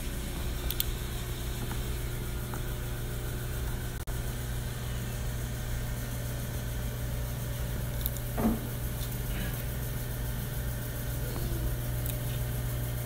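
Steady low mechanical hum throughout, with a brief squeak that falls in pitch about eight seconds in and a few faint clicks.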